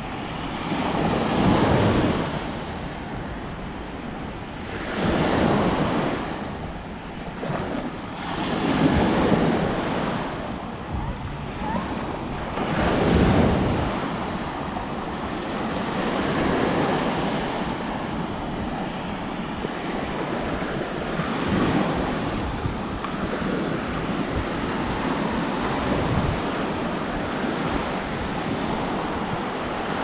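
Small Black Sea waves breaking and washing up a sandy shore, swelling louder every three to four seconds in the first half, then a steadier wash. Wind buffets the microphone underneath.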